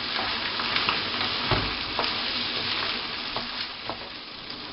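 Rice being stirred into frying tomato sofrito in a speckled enamelled-steel paella pan: a steady sizzle, with the occasional scrape and knock of the utensil against the pan.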